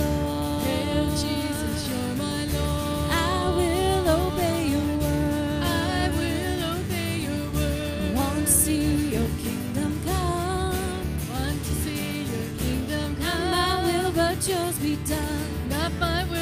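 Live church worship music: voices singing a praise song over band accompaniment.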